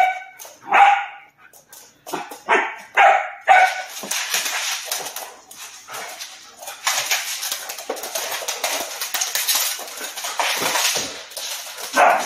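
Two dogs at play, a German Shorthaired Pointer puppy and an older black dog: a run of sharp, high barks in the first few seconds and another near the end. In between comes a long stretch of dense, scratchy scuffling as they wrestle.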